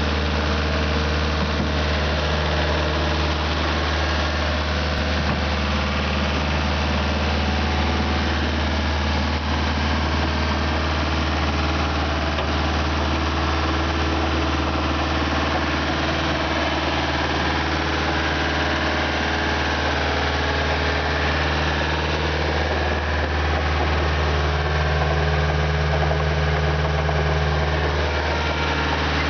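Diesel engine of a 1999 Bitelli BB632 asphalt paver running steadily, with a strong low hum and no revving.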